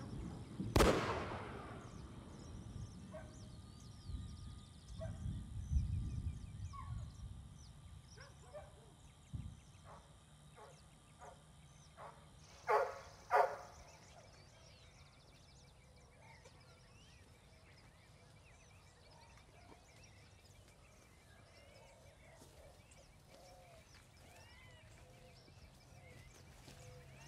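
Rural dawn ambience of birds: scattered chirps and calls throughout, with two loud honking bird calls in quick succession about thirteen seconds in and a faint steady high trill later on. A sudden loud hit comes about a second in, over a low rumble that fades after several seconds.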